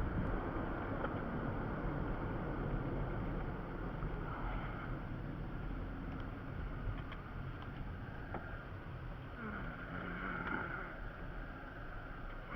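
Steady vehicle and road noise with a low rumble.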